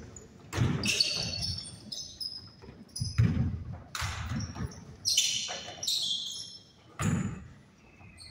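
Basketball being bounced on a gym floor with sneakers squeaking, a string of sharp thuds half a second to a second apart, echoing in the large hall.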